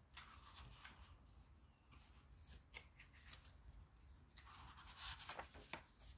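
Near silence with faint, scattered small rustles and ticks, more of them about four to six seconds in.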